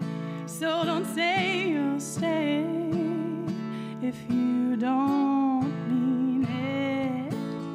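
Acoustic guitar strummed at an even pace under a held, wavering melody line.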